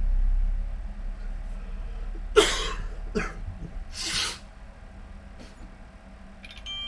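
A person coughing three times over a low steady hum, the first cough the loudest; a faint high steady tone starts near the end.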